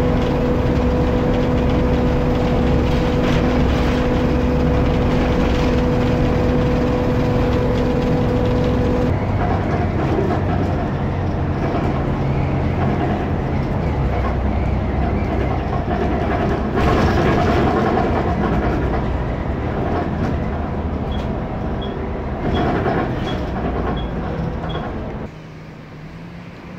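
Diesel engine roar of an Alexander ALX400 double-decker bus running under way, with a steady whine that stops about a third of the way in. The noise then swells and grows rougher, and near the end it drops sharply.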